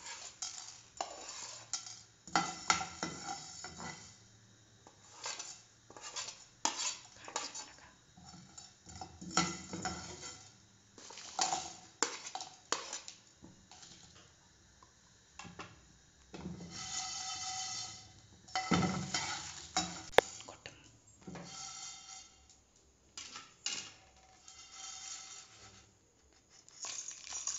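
Slotted steel spatula scraping and stirring coriander seeds, cumin and dried red chillies being dry-roasted in a non-stick frying pan, in repeated short bouts with pauses. Near the end the roasted spices are tipped from the pan into a steel mixer jar.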